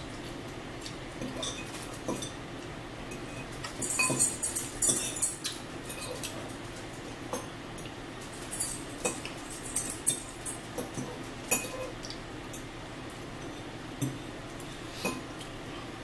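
Eating at a table: metal forks clinking and scraping against bowls, in scattered single clicks with a quick run of clinks and scrapes about four seconds in, over a steady low hum.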